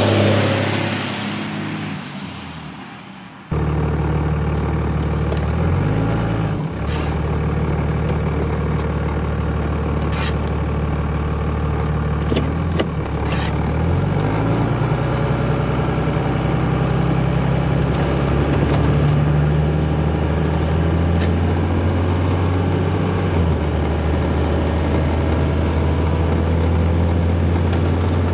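A 24-valve Cummins 5.9 diesel in a pickup passes by at speed and fades off. Then it is heard from inside the cab while driving: a steady, loud drone whose pitch steps a few times, with occasional clicks and knocks.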